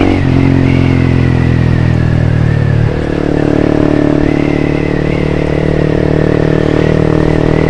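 Honda CBR150R's single-cylinder engine running while the motorcycle is ridden, heard from the rider's seat; its note shifts just after the start and again about three seconds in.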